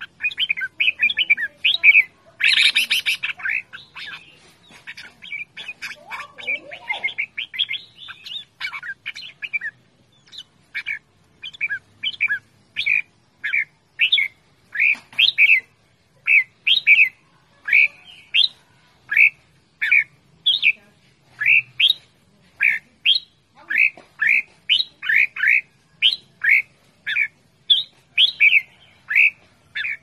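Red-whiskered bulbul calling. It starts with a fast run of chattering notes and a loud harsh burst about three seconds in. From about ten seconds in it settles into a steady series of short, sharp notes, roughly two a second.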